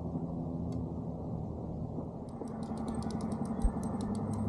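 Fast, even ticking of a baitcasting reel being cranked on a retrieve, about nine ticks a second, starting about halfway through, over a steady low rumble. There is one dull knock near the end.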